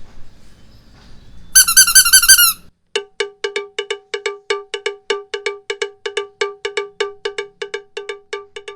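A loud, wavering, squeaky pitched tone lasting about a second, then a fast, even run of identical ringing percussive strikes, about five a second, like a cowbell sound effect.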